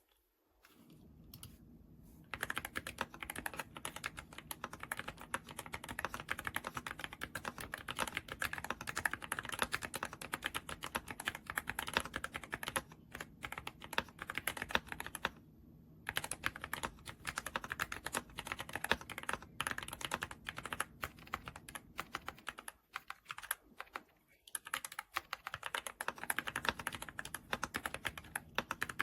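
YUNZII AL66 aluminium-cased mechanical keyboard being typed on fast: a dense, continuous run of key clicks that starts about two seconds in and stops briefly about halfway through.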